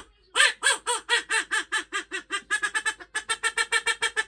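A rapid run of duck quacks, about four a second and speeding up to a fast chatter about two and a half seconds in.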